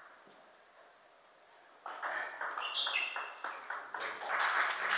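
Table tennis ball clicking back and forth in a rally, bats and table in quick alternation about four times a second, starting about two seconds in. Near the end there is a louder, denser stretch of noise.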